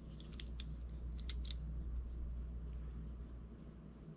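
Small sharp clicks and ticks as a Mazda Miata NA6 speedometer and odometer assembly is handled and turned by hand, several close together in the first second and a half, then fainter scattered ones, over a low steady hum.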